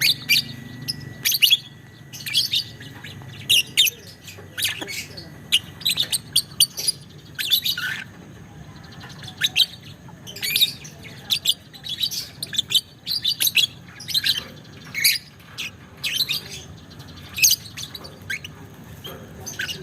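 Lovebird chirping and chattering in quick clusters of sharp, high-pitched calls, repeated every second or so.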